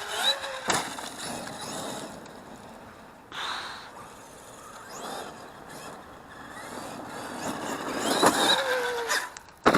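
Traxxas X-Maxx RC monster truck's electric motor whining, rising and falling in pitch with the throttle, with a sharp knock near the end.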